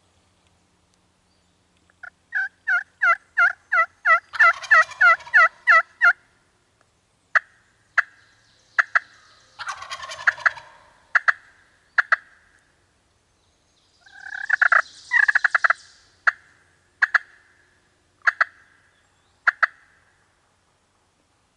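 Wild turkey yelping: a quick run of about a dozen yelps, then single sharp clucks spaced a second or so apart, with another short flurry of notes about two-thirds of the way through.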